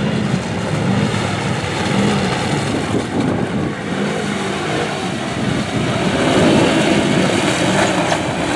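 Polaris Ranger side-by-side's engine running hard under load as it churns through a mud bog, the engine note rising and falling with the throttle and loudest past the middle.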